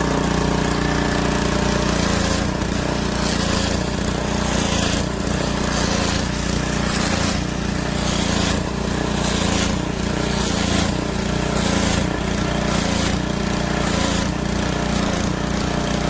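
Gas pressure washer engine running steadily. From about two seconds in, the sound pulses roughly once a second as the water pressure fluctuates.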